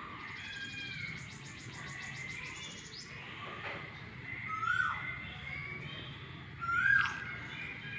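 Several birds calling: one bird gives a short call that rises then drops, twice, and another gives a fast high trill in the first few seconds.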